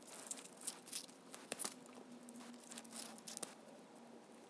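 Faint, irregular crackling and tearing of the brittle paper and aluminium foil layers of an old paper capacitor's wound element as it is picked apart by hand.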